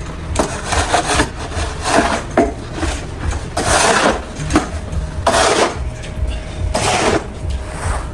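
Snow shovel scraping and pushing through snow in irregular strokes, about one a second.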